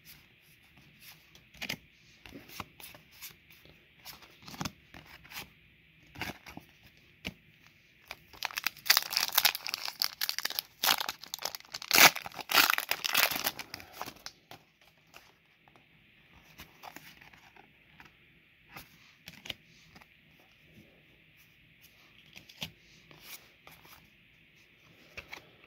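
Foil wrapper of a Pokémon trading card booster pack being torn open and crinkled, a loud crackling stretch of about six seconds midway. Before and after it, soft clicks and slides of stiff trading cards being flipped through by hand.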